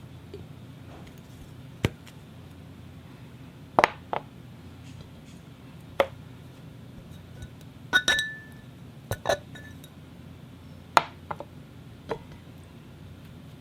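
Crystal glass clinking: about ten sharp, scattered taps at irregular intervals, one near the middle leaving a brief clear ring.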